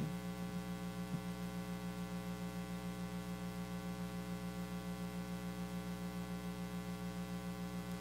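Steady electrical mains hum in the microphone and sound system: a low buzz with evenly spaced overtones, with a faint click about a second in.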